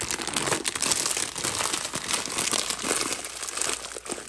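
Plastic snack bags, a bag of pretzels among them, crinkling loudly as they are handled and lifted: a dense, continuous stream of crackles.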